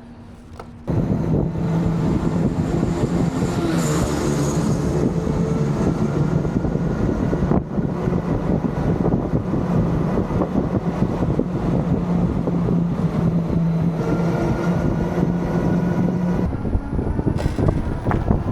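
A vehicle on the move: a steady low motor hum with its overtones over constant rolling and wind noise, the hum gliding briefly about four seconds in.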